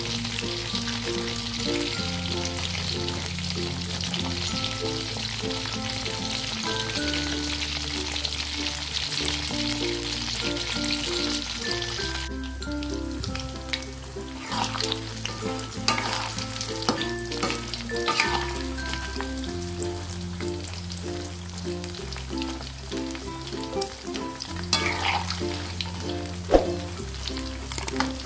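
Batter-coated shrimp deep-frying in hot oil in an aluminium wok, a steady sizzle that drops back about halfway through. After that a spatula scrapes and knocks against the pan now and then as the shrimp are turned. Quiet background music with slow low notes plays underneath.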